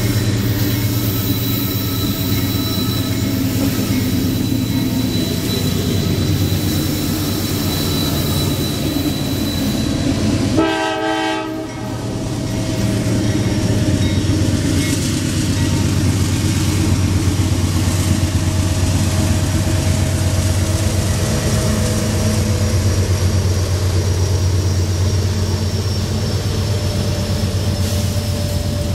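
CSX freight train with GE diesel locomotives, among them an AC6000CW, running slowly as it approaches and passes: a steady deep engine rumble throughout. A short horn sound comes about ten and a half seconds in.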